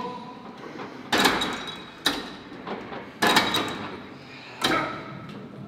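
Gym weights clanking with each repetition: four hard metal knocks about a second apart, each with a short ringing tail.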